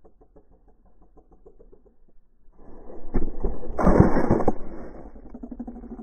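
The helmet-mounted camera scrapes, rubs and bumps against dry dirt as the crashed rider rolls over on the slope, loudest about four seconds in, with several knocks. Beneath it, a dirt-bike engine idles faintly.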